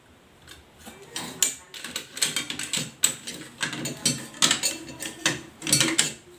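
Hand-tool repair work on metal parts: a fast, irregular run of sharp clicks and rattles that starts about half a second in and grows busier toward the end.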